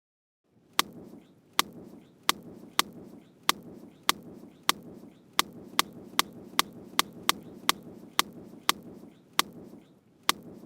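A run of about eighteen sharp knocks or chops, unevenly spaced about half a second apart, over a steady low rumbling noise.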